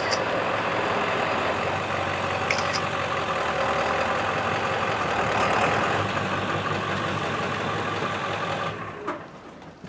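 Service truck's engine idling steadily, stopping near the end.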